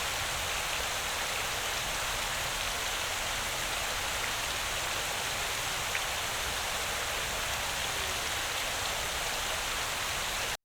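Water fountain splashing steadily, a dense even patter of falling water, which cuts off suddenly near the end.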